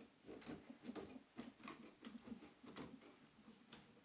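Faint, irregular clicks and creaks, a few a second, from Bessey bar clamps being tightened by their screw handles onto a wooden frame.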